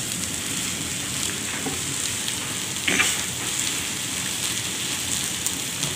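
Okra, onion and curry leaves sizzling steadily as they stir-fry in a non-stick frying pan, with one louder spatula stroke about three seconds in.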